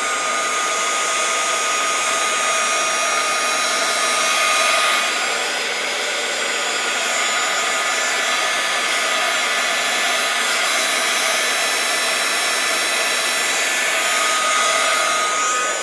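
Heat gun blowing steadily, a continuous hiss of hot air with a thin, steady whine, being passed over the piece to melt away stringy hot-glue strands.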